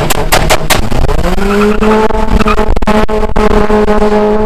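A racing engine under power: a quick run of sharp cracks in the first second, then the engine note rises and holds high and steady.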